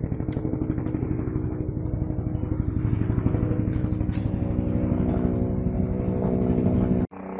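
Helicopter flying overhead: a steady, rapidly pulsing rotor beat over an engine drone, growing slightly louder, then cut off abruptly near the end.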